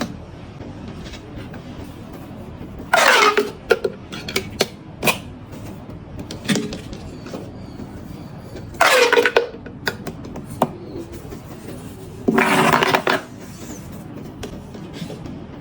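Marbles rolling and clattering along a wooden marble run, with several short, loud rattling bursts and scattered small clicks in between.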